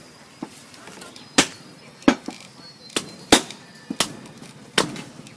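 Irregular sharp chopping knocks, about eight to ten in five seconds, from sheep meat being butchered with a blade.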